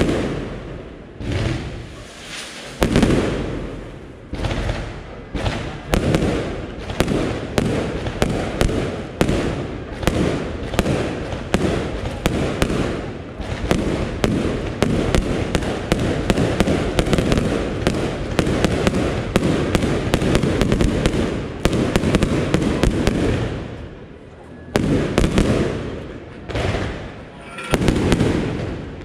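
Aerial firework shells bursting in a rapid, near-continuous barrage of bangs and crackle over a rumbling wash. The bangs ease off briefly twice near the end before picking up again.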